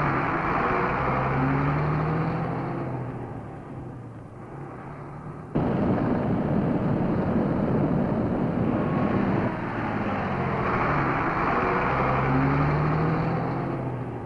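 Bedford truck engine pulling under load with tyre and road noise, its pitch rising as it accelerates. The sound fades down, then cuts abruptly to a louder, rougher stretch about five and a half seconds in, and rises in pitch again near the end.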